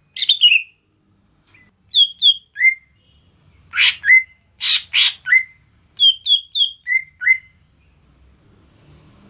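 Greater green leafbird (cucak ijo) singing: short, sharp whistled notes that fall in pitch, given in quick runs of two or three, with a few louder, harsher notes about four and five seconds in. The song stops about two seconds before the end, over a steady high hiss.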